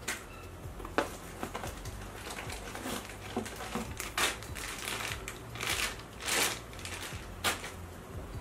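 Plastic packaging crinkling and rustling in the hands in several short bursts, with a sharp tap about a second in.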